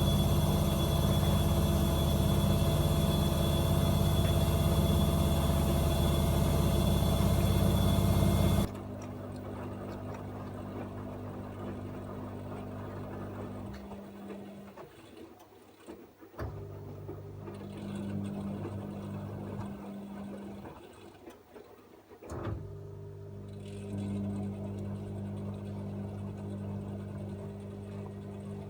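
AEG Öko-Lavamat 74780 washing machine in mid-cycle. A loud steady hum with a high whine cuts off suddenly about nine seconds in. Then the drum motor turns the wash in runs of a few seconds, stopping briefly between runs.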